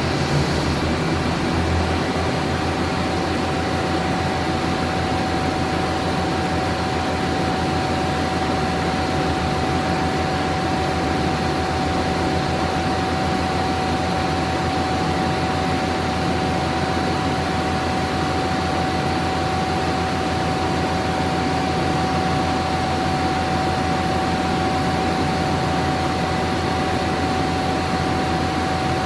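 Steady hum and hiss of powered industrial machinery or ventilation in a machine shop, with a steady high whine over a low hum.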